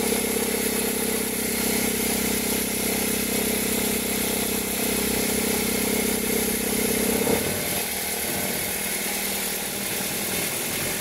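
2003 Toyota Corolla engine running cold with reverse engaged, a steady drone over the idle that stops about seven seconds in. This is the cold-engine noise of the complaint, which the mechanic traces to the accessory belt tensioner.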